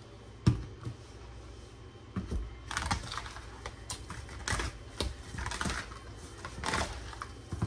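A single sharp knock about half a second in, then from about two seconds on, irregular clicks and rustling of hands mixing seasoned raw chicken in a plastic bowl.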